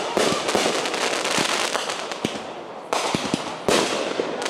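Fireworks display going off overhead: a dense, continuous crackle of bursting shells, with sudden sharp bangs near the start and again about three seconds in and shortly after.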